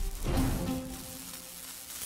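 Intro theme music, its notes dying away and the level falling steadily.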